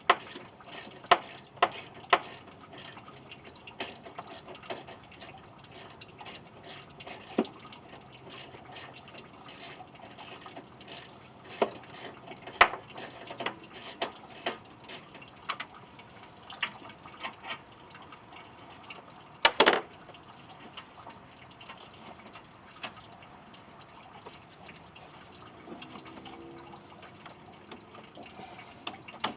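Ratchet wrench clicking in quick runs as fasteners are worked loose, with a single louder clank about twenty seconds in.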